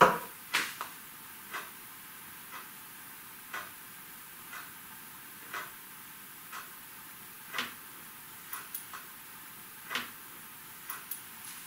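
Knuckles rap on a wooden side cabinet right at the start, then faint short ticks come about once a second, with a few sharper taps or cracks later on. The investigator suspects these may be the plastic window frame creaking as it warms or cools.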